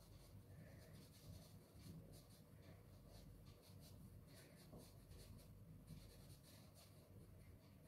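Faint scratching of a soft pastel stick rubbed across paper in a run of short strokes.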